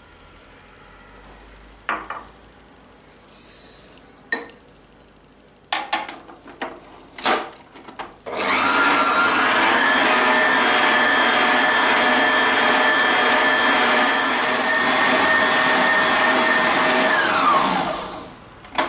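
Electric stand mixer with a balloon whisk beating eggs and sugar in a steel bowl: it starts about eight seconds in, whirs up in pitch to a steady speed and winds down shortly before the end. Before it starts there are a few light knocks and clicks.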